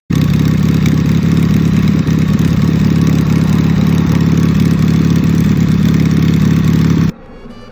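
Harley-Davidson Ironhead Sportster's air-cooled V-twin idling steadily through open straight pipes. It cuts off suddenly about seven seconds in.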